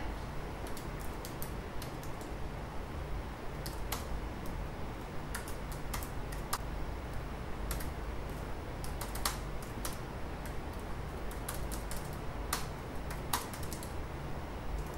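Typing on a laptop keyboard: irregular key clicks at an unhurried pace, a few standing out louder than the rest, over a low steady hum.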